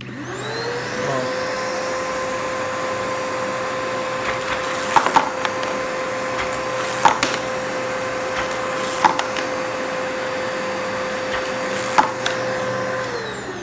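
Vacuum cleaner with a transplanted motor switched on, spinning up to a steady whine. About five sharp clacks come as glass marbles are sucked up through the tube. Switched off near the end, the motor winds down.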